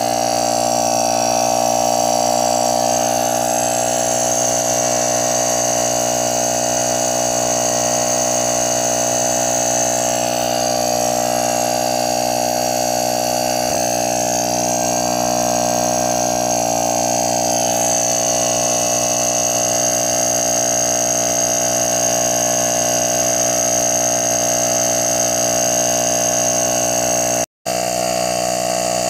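Portable electric tyre-inflator air compressor running steadily, pumping air through a fitted tyre valve into a dry-powder fire extinguisher to re-pressurise it. Its motor buzz holds one even pitch, with a momentary break near the end.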